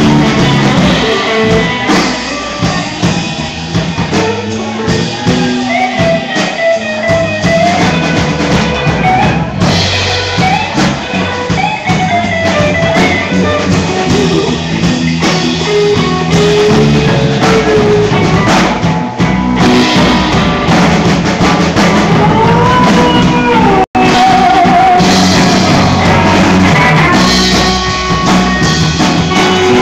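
Live rock band playing: electric guitar, bass and drum kit, with a gliding lead melody over the top, loud through a phone's microphone. The sound cuts out for an instant about three-quarters of the way through.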